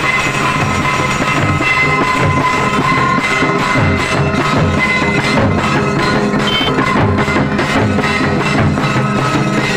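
Santali folk drumming: a double-headed barrel drum played with hand and stick and a drum beaten with sticks, keeping up a steady dance rhythm, with hand cymbals ringing.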